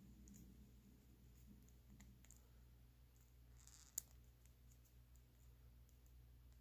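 Near silence with faint clicks of a plastic action figure's hip joints being swivelled by hand, and one sharper click about four seconds in.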